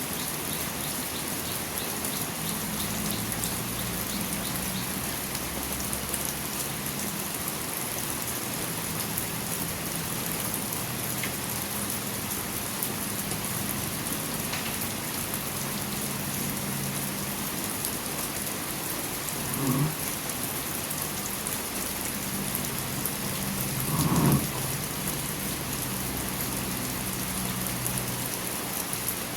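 Steady rain falling. Twice in the second half, a few seconds apart, a short louder sound rises above it.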